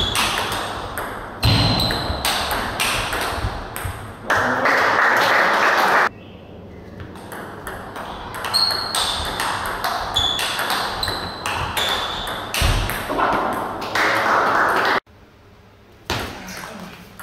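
Celluloid-type table tennis ball clicking rapidly back and forth between bats and table in fast rallies, each hit a sharp tick with a short high ring. Twice a rally gives way to about two seconds of loud rushing noise, and the sound cuts off abruptly near the end before another rally starts.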